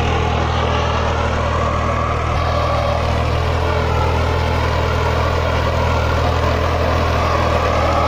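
Escort 355 tractor's 50-horsepower diesel engine running steadily under load as it pulls a plough through dry soil.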